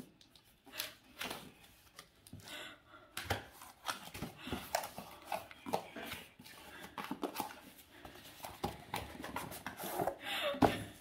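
Cardboard shipping box being opened by hand: its flaps pulled and rustled and the boxed product drawn out, with scattered scrapes, crackles and taps.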